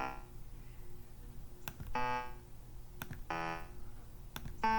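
Four short synthesizer notes from Chrome Music Lab's Song Maker, each sounding as a note is placed on the grid. A faint click comes just before each of the last three.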